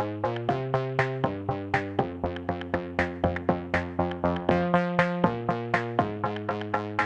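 Background music: an electronic track with quick, evenly spaced plucked synthesizer notes over held chords that change about once a second.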